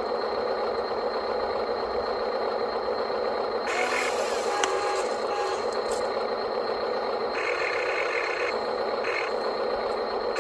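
Radio-controlled model construction machines working: a steady electric motor and gearbox whine with scraping and rattling. A few short bursts of higher-pitched motor noise break in, about four seconds in and again for about a second near eight seconds.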